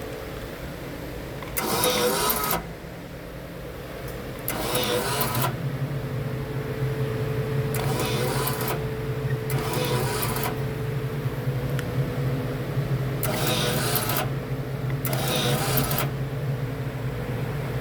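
Marlon 350 tabletop coil cut-and-crimp machine cycling six times, each cycle a harsh mechanical burst of about a second, over the machine's steady hum. A deeper hum joins about four and a half seconds in and stays.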